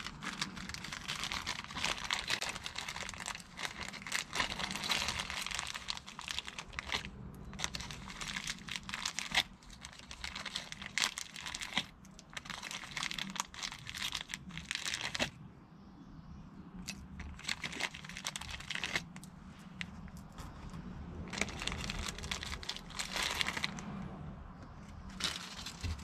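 Small clear plastic bag crinkling as it is handled, in on-and-off bursts of crackly rustling.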